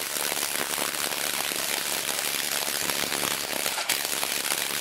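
Cordless impact driver hammering a hex bolt through a wooden block into the wall, a fast continuous rattle of impacts with a brief break about four seconds in.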